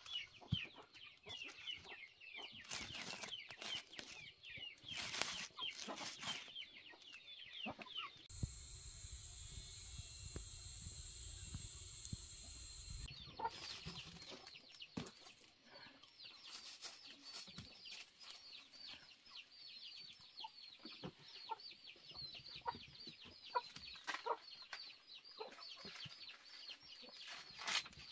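Chickens clucking, with chicks cheeping in rapid, high, falling peeps, mixed with sharp clicks and knocks. For about five seconds in the middle, a steady hiss and low rumble replace them.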